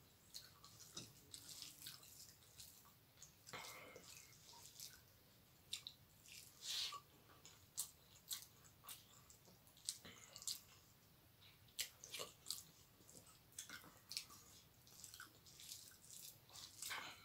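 Eating by hand: fingers squishing rice with dal and curry on a steel plate, and wet chewing, heard as soft squishes, clicks and smacks at irregular intervals.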